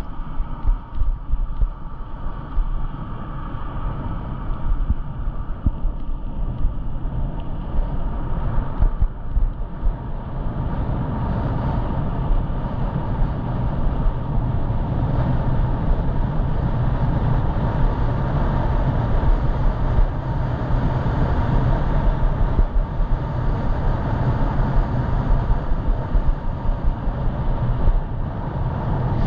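Wind and road noise on a head-mounted action camera while riding an e-bike, with a steady low rumble. It gets louder about ten seconds in.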